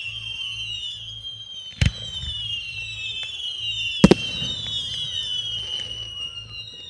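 Two aerial firework shells bursting, two sharp bangs about two seconds apart, the second louder, each followed by a low rumble. A high whine that keeps sliding down in pitch runs underneath.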